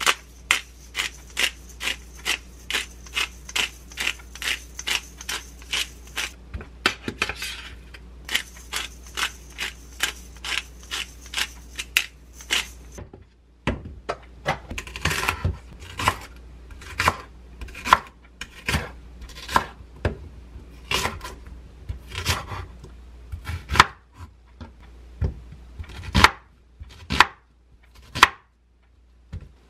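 Hand-twisted seasoning grinder clicking rapidly, about four clicks a second, in two runs with a short break between. Then a kitchen knife chopping through a leek and an onion on a wooden cutting board, strokes coming one to two a second.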